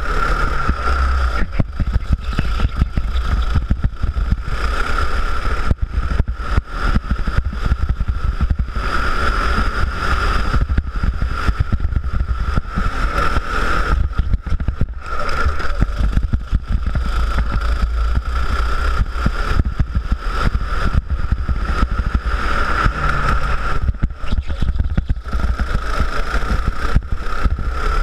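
Go-kart engine running under throttle as the kart laps the track, its note swelling and easing through the corners, heard from an onboard camera with heavy wind buffeting on the microphone.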